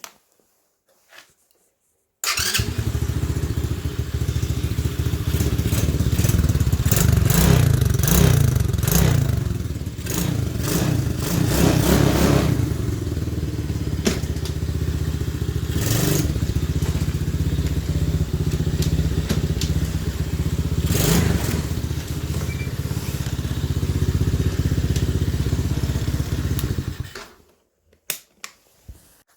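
Small 110cc four-stroke mini ATV engine running and being revved several times. It starts abruptly about two seconds in and stops abruptly near the end.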